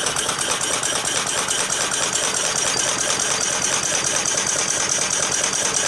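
American Model Quarter Horse single-cylinder model steam engine running steadily on compressed air at about 3 pounds of pressure: a fast, even rhythm of exhaust puffs and mechanical clatter over a constant hiss of air.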